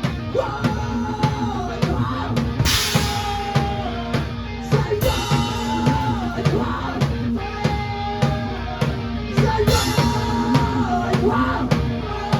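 Drum kit played along to a rock backing track with pitched instruments: a steady beat of kick and snare, with a cymbal crash about three times.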